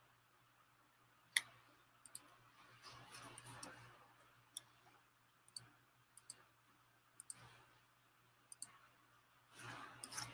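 Faint, scattered single clicks of a computer mouse, about one a second, with a soft brushing noise near the end.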